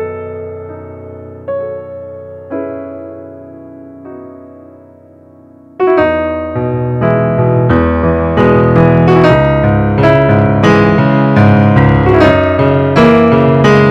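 Background piano music. A few slow notes die away, then about six seconds in a louder, fuller passage begins with faster notes.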